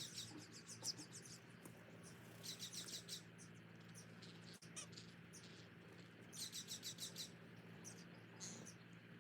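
A small bird chirping faintly in quick runs of high cheeps, three runs a few seconds apart and one more cheep near the end.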